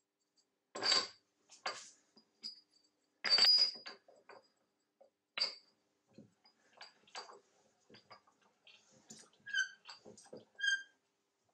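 Cast aluminium magnetic soft vice jaws being handled and set onto a steel bench vice: irregular knocks, scrapes and clunks of metal on metal, the loudest a little over three seconds in, with a few short ringing clinks near the end.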